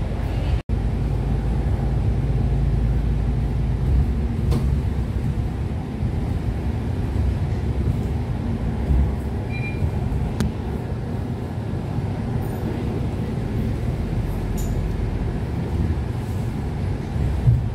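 Steady low engine and road rumble heard from inside a moving bus. The sound cuts out for an instant just under a second in.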